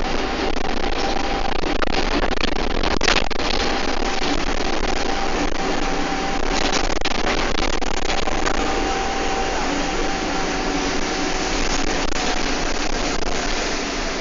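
Bus engine and road noise heard from inside the cabin, running steadily, with a thin steady whine and a few sharp rattles or knocks, the clearest about three seconds in.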